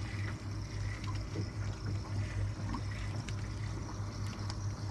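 Water lapping against a drifting boat's hull over a steady low hum.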